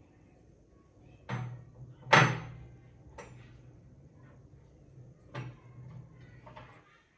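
Tableware being set down on a table: a handful of separate knocks and clinks with a short ring, the loudest about two seconds in, with lighter clatter near the end.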